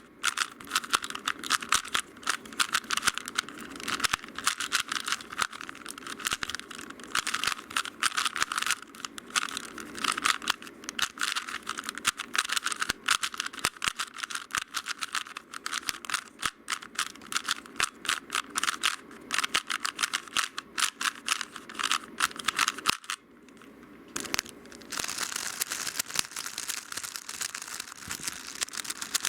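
3x3 puzzle cubes being turned rapidly by hand: fast, dense plastic clicking and clacking of the layers. It stops briefly about 23 seconds in, then resumes with a smoother, hissier turning sound, a different cube.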